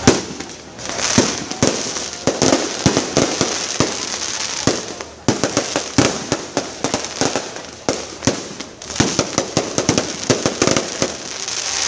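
Aerial fireworks going off in rapid succession: many sharp bangs and crackles, the loudest just at the start, with stretches of high hiss between the bursts.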